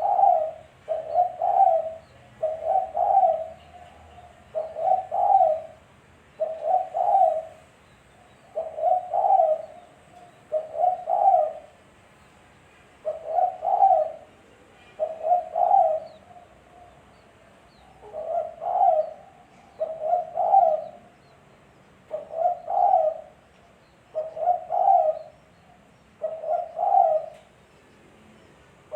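Spotted dove cooing: the same roughly one-second coo phrase repeated about every two seconds.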